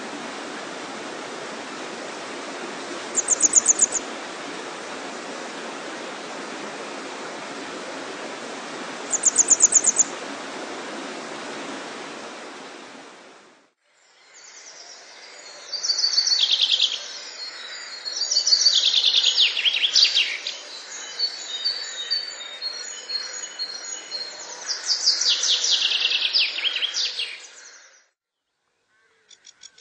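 A steady rush of running water with two short high trills in it, which cuts off about 14 seconds in. After a brief gap, songbirds sing several loud, rapid, high phrases, stopping shortly before the end.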